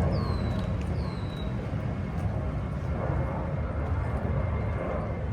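A bird gives two short whistled calls, each falling in pitch, about a second apart near the start, over a steady low outdoor rumble.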